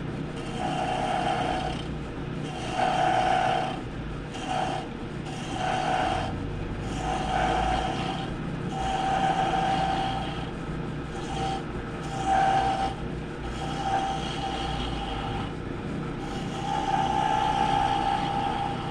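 Wood lathe running with a steady motor hum, while a tool is pressed against the spinning wood in about nine short passes. Each pass adds a pitched ringing tone.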